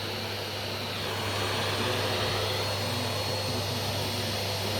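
Vacuum cleaner running steadily, a little louder from about a second in.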